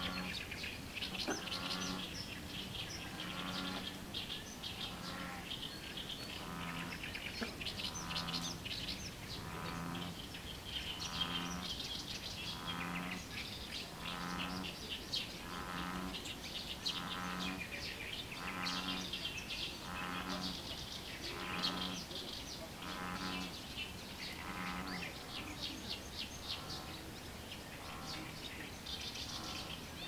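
American bullfrog calling: a long run of deep, cow-like notes, about one a second, that stops a few seconds before the end. Small birds chirp throughout.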